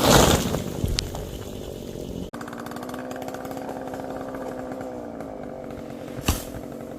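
Chainsaw running, with a loud burst of noise right at the start. After a sudden break a little over two seconds in, a steady, lower, even-pitched chainsaw hum follows.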